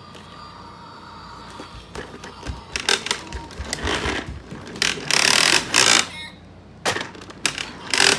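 Playskool Dusty toy vacuum being pushed across a hardwood floor: plastic wheels rolling and its parts clattering in irregular bursts, the longest about five seconds in.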